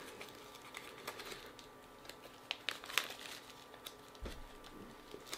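Faint crinkling of a small sealed plastic jewellery package being handled and turned over, with a few sharper crackles around the middle and a soft low thump near the end.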